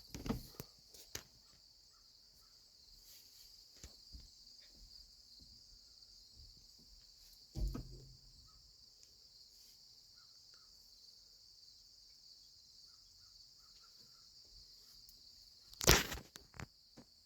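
Steady high buzz of field insects in an oat field, with a few short knocks, the loudest about halfway through and near the end.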